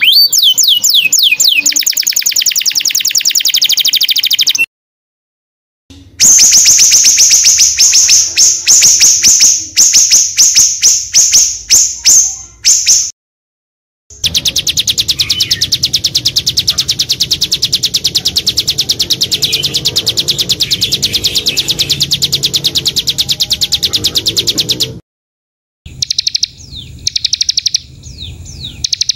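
Small songbirds singing long, rapid, high-pitched trills and fast repeated notes. Several separate song segments are broken by short silences about 5, 13 and 25 seconds in.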